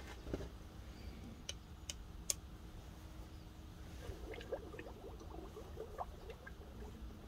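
A red-hot leaf-spring steel knife blade plunged into a barrel of quenching liquid to harden it, crackling and bubbling faintly from about four seconds in. A few light clicks come before it.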